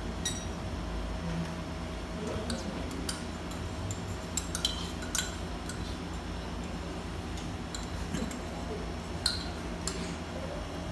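Metal spoon clinking and scraping against a small stainless steel cup while blueberries are spooned out into a blender jar. The clinks are short, sharp and scattered, a dozen or so, with a few louder ones near the end.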